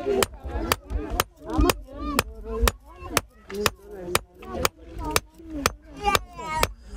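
A handleless hand-held hammer beating a thin metal blade on a stone anvil, in steady sharp ringing strikes about two a second, as a blacksmith hammers out the blade.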